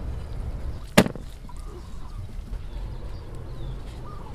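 One sharp chop about a second in, a cleaver striking beef on a thick wooden chopping block, over a low steady rumble.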